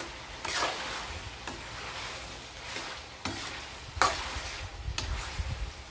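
A metal ladle stirs and scrapes chunks of pork belly around a wok, with several separate scrapes over a steady sizzle. The sizzle comes from the cooking water boiling down as the pork fat begins to render for cracklings.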